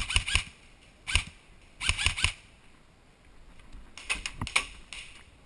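Airsoft guns firing: sharp snapping shots in short rapid bursts of a few rounds, about four separate bursts with quiet gaps between them.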